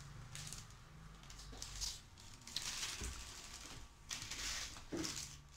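Clear plastic zip bag rustling and crinkling in several short bursts as it is shaken out, with small beads pattering into a metal bowl.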